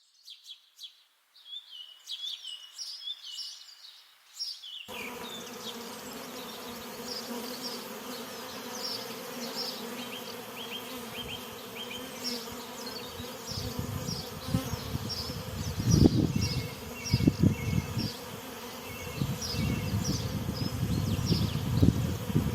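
Honeybees at an apiary buzzing in a steady, dense hum that sets in about five seconds in, with songbirds chirping throughout. In the second half, low thuds on the microphone are louder than the hum.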